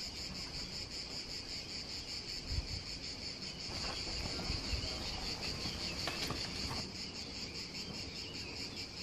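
Steady chorus of summer insects chirping in a high, slightly pulsing drone, with a few soft low thumps about two and a half and four and a half seconds in.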